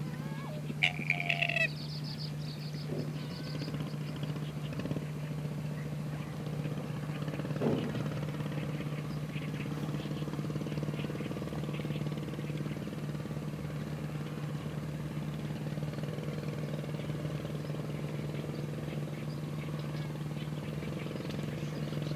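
A steady engine hum runs throughout. About a second in, a few short, sharp bird calls sound over it.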